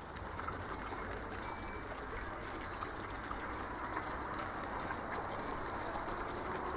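Steady rushing background noise with a low rumble, holding level throughout.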